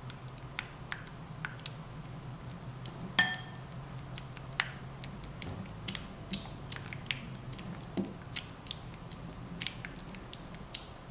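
A spatula stirring glue and food colouring in a glass bowl: frequent light clicks and taps of the spatula against the glass, irregular, the loudest a little after three seconds and at about eight seconds.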